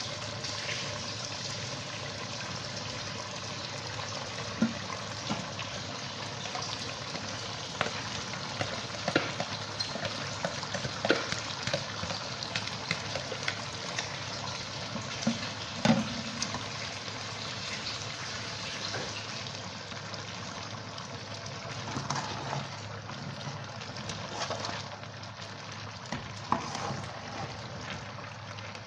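Aluminium pot of meat and vegetable soup sizzling steadily on a stove, with scattered clinks and knocks of a spoon against the pot as leafy greens are stirred in.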